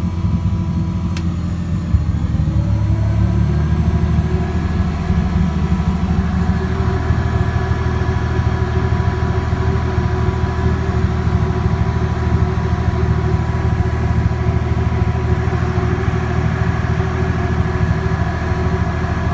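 Toyota 1JZ-GTE turbocharged inline-six idling in a drift car that is not yet tuned. Its idle climbs a little two to four seconds in, then holds steady.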